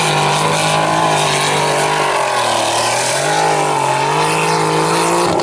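Turbocharged V6 engine of a Formula Offroad car running at high revs under full load as it climbs the hill. The revs dip briefly about halfway through, then pick up again.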